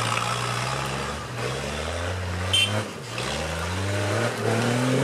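Off-road 4x4's engine revving under load, its pitch climbing, dropping back and climbing again about four times as the driver works the throttle for traction.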